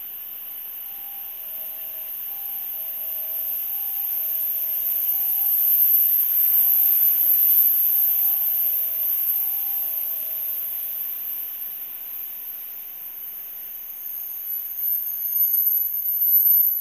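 A Hokuriku Shinkansen E7/W7-series train pulls out of the station. Its running noise builds for the first several seconds and then fades as it leaves. For about ten seconds near the start, a two-note electronic warning tone alternates between a higher and a lower note. A steady high-pitched hiss runs under it all.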